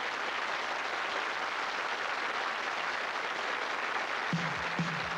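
Studio audience applauding steadily. About four seconds in, music with a beat starts over the clapping.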